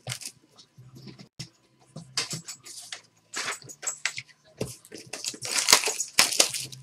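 A trading card box being opened by hand: a run of short, irregular crinkles, scrapes and rustles of plastic wrap and cardboard, loudest about five and a half seconds in.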